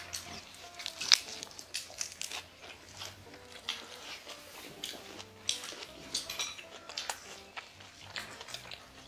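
Close-miked chewing of a lettuce wrap of jokbal with garlic and chives: wet mouth sounds with many short crackles and clicks, the sharpest about a second in. Faint background music underneath.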